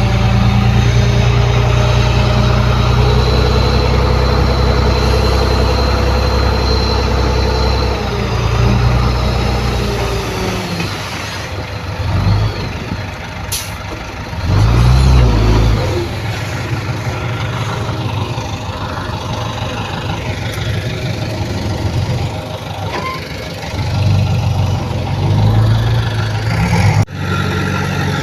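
Heavy diesel engines of working earthmoving machinery and trucks. The engine note holds steady for about the first ten seconds, then rises and falls in surges. A short, sharp hiss sounds about halfway through, and the sound breaks off abruptly near the end.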